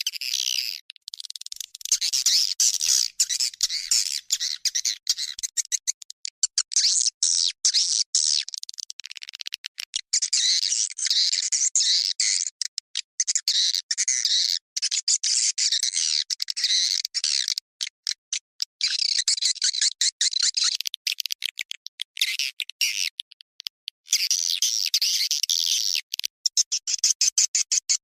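Swiftlet calls played as a swiftlet-farming lure sound: dense, rapid, high twittering chirps in runs of several seconds, broken by short gaps.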